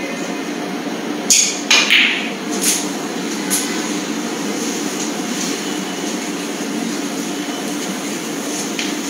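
A snooker cue strikes the cue ball about a second in. Half a second later comes a sharp click of ball on ball, then a couple of lighter knocks as the balls run on. A steady hum of the hall lies underneath.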